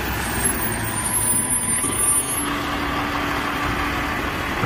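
Garbage truck engine running steadily, a continuous heavy-vehicle noise with a faint held hum.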